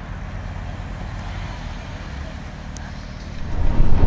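A low, steady outdoor rumble. About three and a half seconds in, it gives way suddenly to the much louder rush of wind and engine noise of a motorcycle riding along a road.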